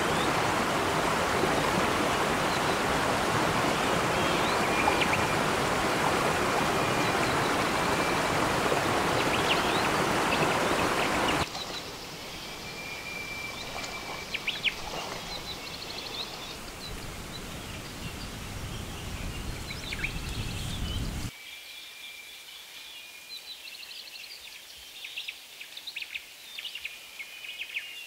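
A forest stream rushing over rocks in a small cascade for about the first ten seconds. Then, much quieter, water splashing as someone wades, and finally a calm forest with birds chirping over the faint stream, with some light rustling near the end.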